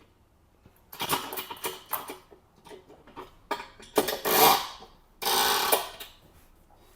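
Clicking and rattling of a chiropractic traction table's fittings and stabilizing straps being adjusted around a patient, followed by two rasping noises, the second a steady rasp about half a second long.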